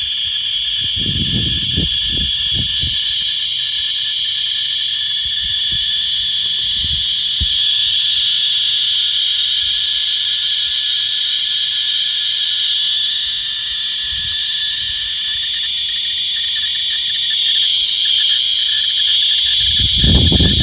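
Radiation Alert Inspector USB Geiger counter's audio clicking so fast that it runs together into a steady high-pitched crackle. The counter is held close to uranium-bearing torbernite and reads a few thousand counts per minute.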